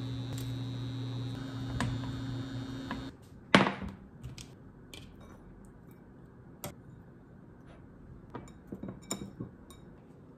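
Kitchen handling sounds: a knife cutting broccoli on a plastic cutting board over a steady hum that stops about three seconds in. A loud ringing clink of a dish then comes, followed by light clicks and taps as food is put into a bowl and plates are set on the counter.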